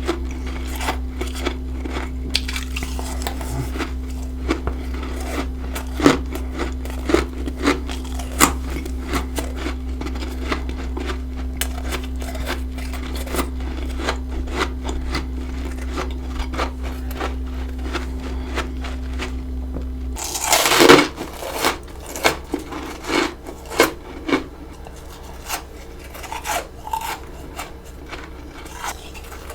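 Close-miked eating of freezer frost: a dense run of sharp crunches and clicks from bites and chewing. A steady low hum underlies the first twenty seconds and then stops, followed by a loud burst of crunching.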